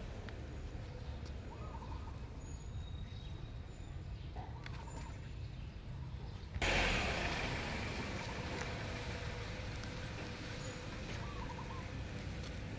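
Outdoor background noise with a low rumble and a few faint bird chirps. About halfway through, a louder steady hiss comes in suddenly and carries on to the end.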